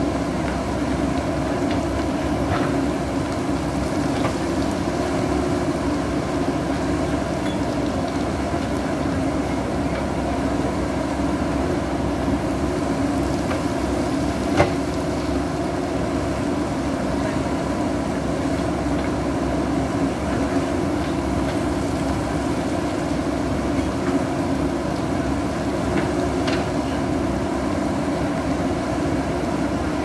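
JCB backhoe loader's diesel engine running steadily under load as the backhoe digs landslide dirt, with a few sharp knocks of the bucket against rock, the loudest about halfway through.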